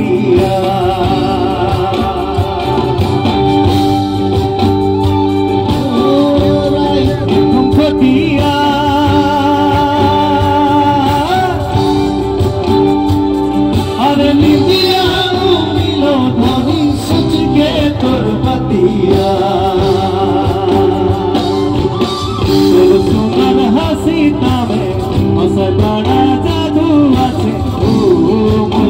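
Loud live band music with singing.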